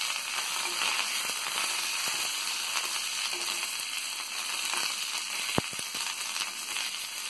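Dried red chillies, garlic and curry leaves sizzling and crackling in hot coconut oil in a small pan as they are stirred with a spoon. A single sharp tap about five and a half seconds in.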